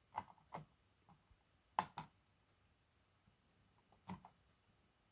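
Small push buttons on a DIY circuit board clicking as they are pressed and released, three pairs of short clicks a second or two apart.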